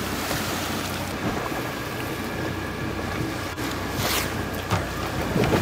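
Boat under way on choppy sea: a steady low engine hum under rushing water and wind on the microphone. About three and a half seconds in it cuts off sharply, followed by a few short sharp knocks.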